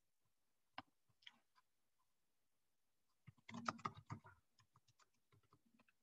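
Faint, irregular clicks and taps of a computer keyboard being typed on, with a denser clatter of keystrokes about three and a half seconds in.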